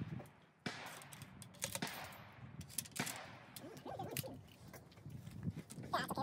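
Handling noise from a Model 1842 .69-calibre smoothbore musket during loading: sharp metallic clicks and scrapes as the steel ramrod is drawn and returned and the musket is brought up to be capped.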